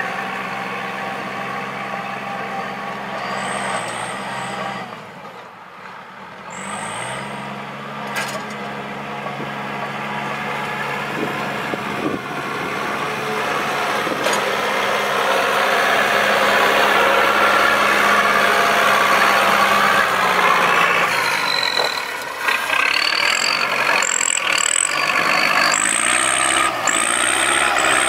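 Kubota cab tractor's diesel engine working under load as it drags a disc plough through heavy mud, dipping briefly about five seconds in and growing louder from about halfway. Short high squeals come in a few times, repeating about once a second near the end.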